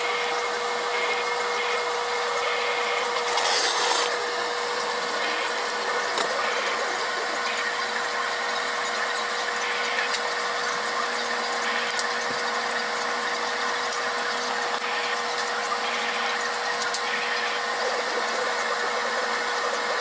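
Light handling of a balsa-wood model airplane frame, faint rubbing and small clicks of the thin sticks, over a steady hiss and constant hum. There is a louder scrape about three to four seconds in.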